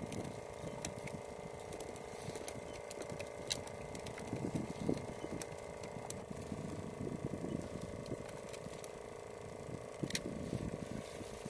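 A boat engine running steadily, a constant even hum, with wind rumbling on the microphone and a few light clicks.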